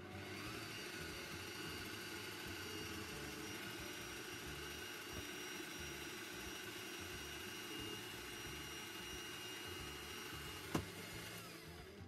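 Bosch PBD 40 bench drill press running steadily with a whine while drilling MDF. It spins up at the start, and near the end a sharp click is followed by the whine falling as the motor winds down.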